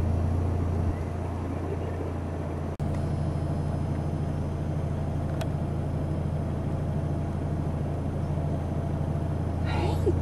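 Car engine idling steadily as a low, even hum, with a momentary break about three seconds in.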